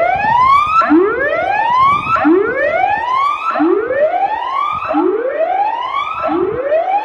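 Loudspeaker tsunami warning siren sounding a test. It gives a really loud, repeated rising whoop, each sweep climbing in pitch for about a second and starting again roughly every second and a half.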